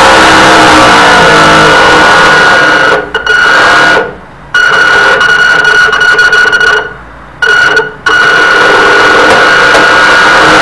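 Model boat propeller drive running with the stainless-steel variable-pitch propeller spinning in air: a steady high-pitched mechanical whine. It drops away sharply twice, for about half a second around four seconds in and again around seven seconds, then picks back up.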